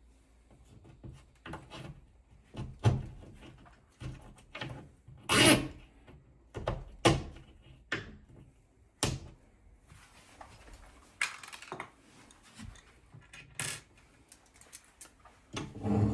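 Irregular knocks, taps and brief scrapes of tools and mounting hardware being handled, about a dozen of them, loudest around five to seven seconds in and again near the end.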